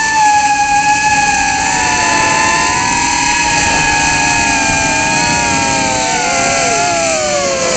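Emax Tinyhawk 2 micro FPV drone's brushless motors and propellers whining in flight, heard from the onboard camera. Several close pitches hold nearly steady, then slide lower over the last couple of seconds.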